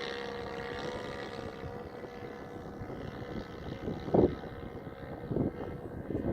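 The 1.20 four-stroke glow engine of a large radio-controlled DHC-1 Chipmunk model running steadily in flight, its note fading as it goes away. Wind gusts thump on the microphone about four seconds in and again near the end.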